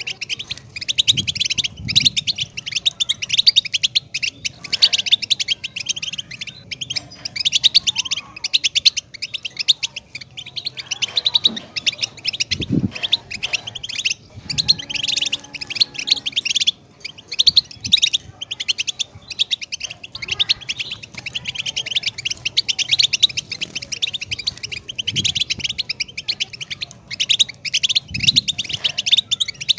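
European goldfinch singing a long, fast, continuous twittering song of rapid chirps and trills, with no pauses.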